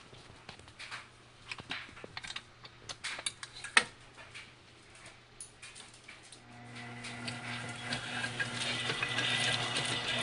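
Clicks and knocks from handling a stand mixer, the loudest sharp knock near four seconds in. About six seconds in, the Breville stand mixer's motor starts and runs with a steady hum and a growing whir as its beater works a thick mixture in the steel bowl.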